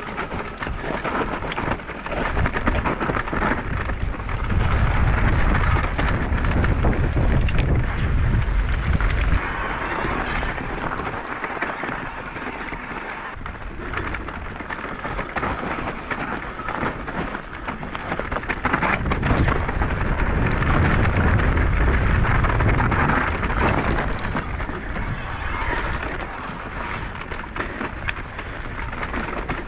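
Wind buffeting the microphone and knobby mountain-bike tyres rolling over rocky dirt and loose gravel on a steep downhill run, with rattling and knocks from the bike over the rocks. The wind rumble swells twice, about four seconds in and again near the twenty-second mark.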